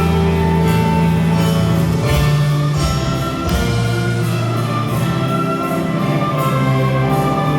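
A massed youth orchestra playing slow, held chords, the harmony shifting about every one to two seconds.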